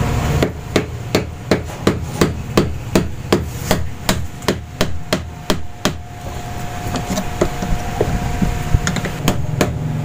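Quick, evenly spaced hammer blows, about three a second, on a tool set against a washing machine's gear case to break the case open. They stop about six seconds in, and a few more come near the end.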